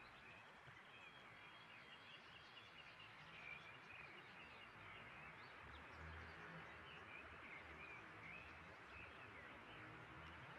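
Faint outdoor ambience with small birds chirping now and then.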